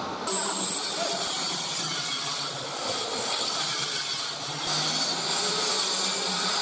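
Steady hissing machine noise with a faint low hum, starting abruptly about a third of a second in.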